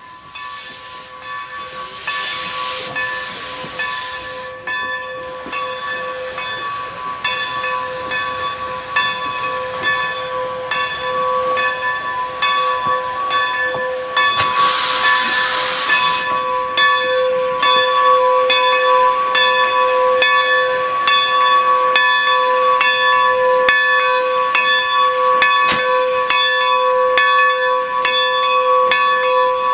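Steam locomotive drawing closer with its bell ringing steadily, the ringing growing louder as it approaches. Two bursts of steam hiss, one near the start and one about halfway through.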